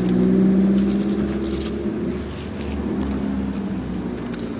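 Fizz Whiz popping candy crackling faintly in the mouth over a steady, fairly loud low motor hum.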